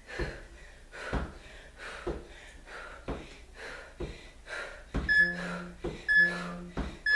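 A woman breathing out hard about once a second in time with plank knee twists. From about five seconds in, an interval timer beeps short electronic countdown beeps once a second, signalling the end of the work interval. The beeps are the loudest sound.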